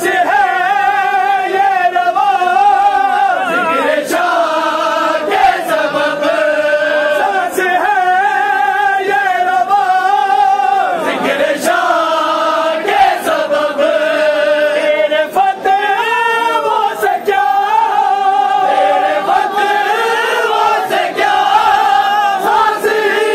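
A group of men singing an Urdu qasida together in mourning chant, one melody carried by many voices, with scattered sharp slaps over the singing.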